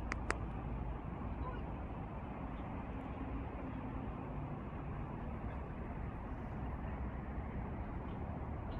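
Steady outdoor background noise with a strong low rumble, opening with two sharp clicks.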